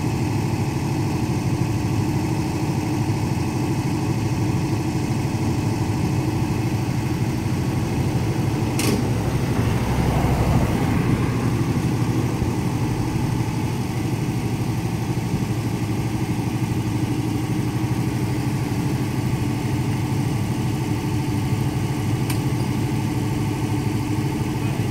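Fahr M44 combine harvester's engine running steadily at low revs. A car passes about ten seconds in, with a sharp click just before it.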